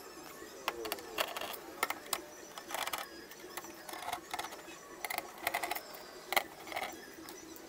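Scattered light clicks, taps and scrapes of hands handling metal and plastic parts of an opened LCD TV while its backlight driver module is being opened.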